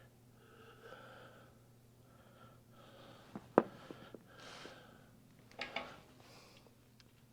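Quiet hand work on fitting an oil pan: soft rustles and breaths, one sharp click about three and a half seconds in, and a couple of small clicks near six seconds.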